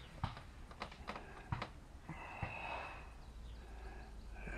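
Light clicks and taps of small carburetor parts being handled as a choke piece is test-fitted onto a new generator carburetor, four or five in the first second and a half, followed by a soft breath about two seconds in.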